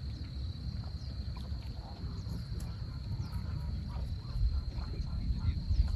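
Outdoor waterside ambience: a low rumble that swells after about four seconds, under a steady high-pitched insect drone and a few faint chirps.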